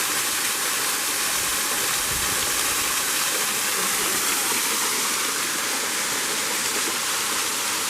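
Small waterfall: water falling and splashing in a steady, even rush.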